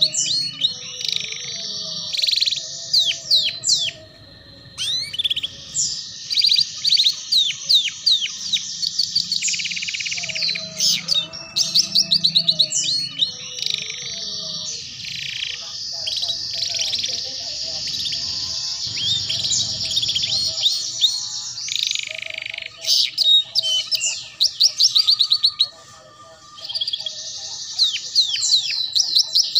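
Domestic canary singing ngeriwik: long, fast, continuous phrases of rapid trills and chirps. There are brief pauses about four seconds in and again near the end.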